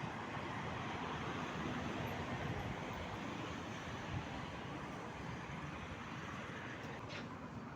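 City street traffic ambience: a steady rush of passing cars and other vehicles, with a brief knock about four seconds in.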